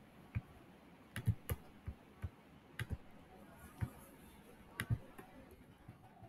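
Computer keyboard keystrokes and mouse clicks: about a dozen short, sharp clicks at an irregular pace, some in quick pairs.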